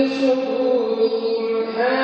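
A man's voice in melodic Quran recitation (tajweed), holding one long drawn-out note that turns in pitch near the end.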